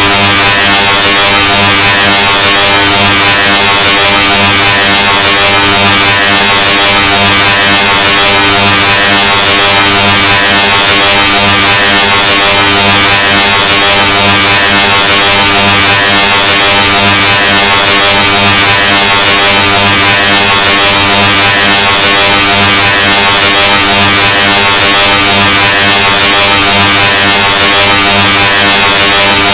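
Extremely loud, harshly distorted electronic buzz: one steady, unchanging tone pushed to full volume.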